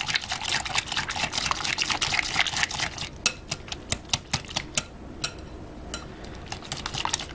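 Wire whisk beating a wet egg, sugar and applesauce mixture in a glass mixing bowl: quick clicking of the wires against the glass, dense for about the first three seconds, then slower, separate ticks.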